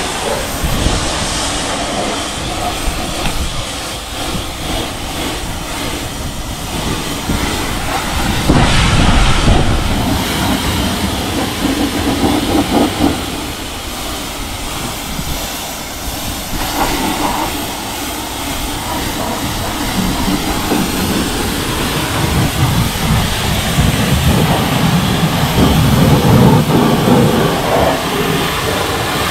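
Pressure washer running and spraying water, a steady loud hiss of spray that swells and fades as the jet moves.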